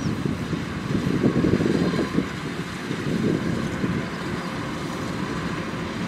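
Kubota DC105X combine harvester running steadily while cutting and threshing rice, its diesel engine and threshing drum making a continuous low machine noise.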